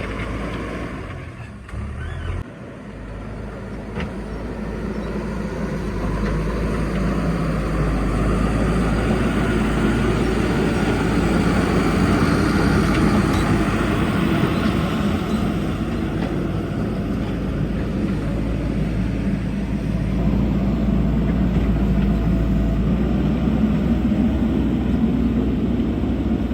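Backhoe loader's diesel engine running under work. It dips briefly about two seconds in, then builds up and holds steady.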